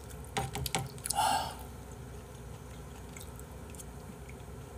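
Close-up mouth sounds of a person eating spoonfuls of rice porridge with abalone: a few quick wet clicks in the first second, a short louder slurp about a second in, then soft chewing.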